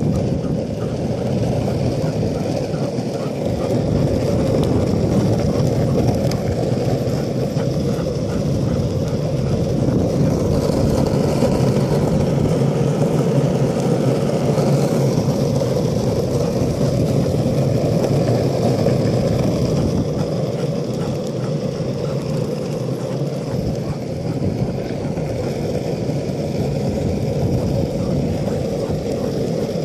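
Longboard wheels rolling over asphalt: a steady, even rolling noise with no break.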